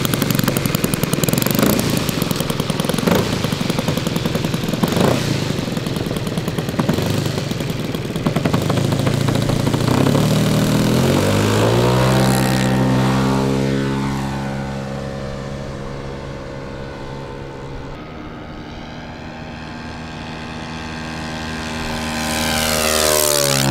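Radio-controlled F4U Corsair model's propeller engine: loud through the takeoff run, rising in pitch and settling into a steady note as the plane climbs away and fades, then a close pass near the end with the pitch swooping down as it goes by.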